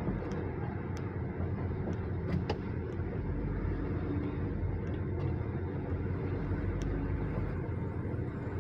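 Honda BR-V running, a steady low rumble with a few faint sharp clicks.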